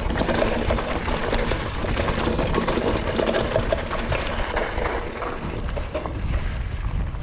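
Mountain bike riding down a dirt trail: a steady rush of tyre noise, thick with quick rattles and clicks from the bike.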